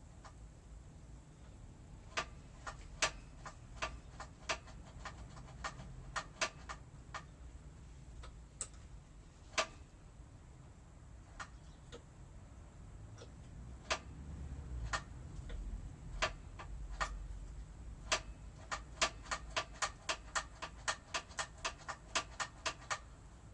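Sharp small clicks from hands-on work on a motorcycle's brake while bleeding it: scattered single clicks at first, then a quick even run of about three a second near the end, with a low rumble of handling in the middle.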